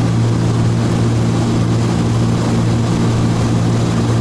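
Cockpit drone of a Cessna T303 Crusader's twin turbocharged six-cylinder piston engines and propellers in cruise, heard inside the cabin: a steady, loud, even hum with no change in pitch.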